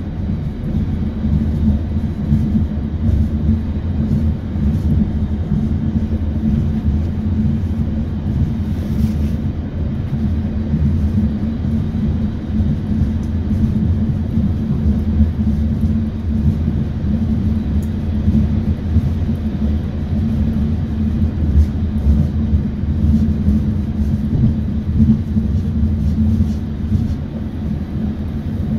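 ABB UBp electric train on the narrow-gauge Roslagsbanan running along the line: a steady, continuous low rumble.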